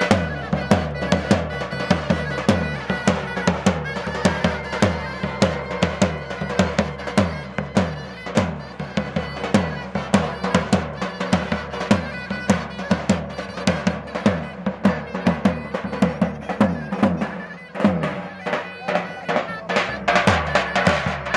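A davul, a large double-headed drum, beaten with a stick in a steady dance rhythm, under a reedy wind instrument, typically a zurna, holding a melody in long notes: live folk dance music. The deep drum strokes drop out briefly near the end, then return.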